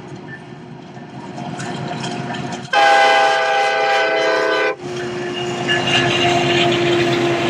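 Union Pacific freight train's lead diesel locomotive sounding its horn in one long blast of about two seconds, which cuts off sharply, as the locomotives pass close by. Before the horn the engine rumble rises as the train approaches; after it the engines run on with a steady hum.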